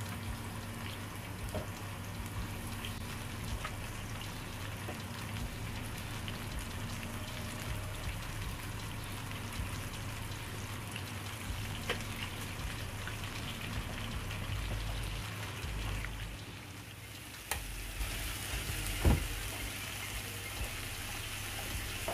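Gram-flour-battered salmon pieces deep-frying in a pan of hot oil: a steady sizzle full of small crackles. A sharp click comes about three-quarters of the way through, and a brief knock follows a second and a half later.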